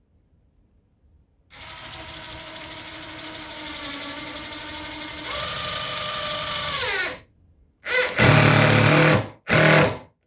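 Cordless power drill driving screws into the subfloor. One run of about five seconds speeds up partway and winds down in pitch as it stops, then come two shorter, louder bursts.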